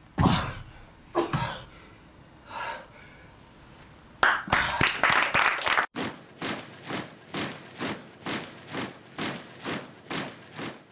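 A few thumps, then a burst of applause about four seconds in that cuts off abruptly, followed by steady rhythmic clapping at about two claps a second.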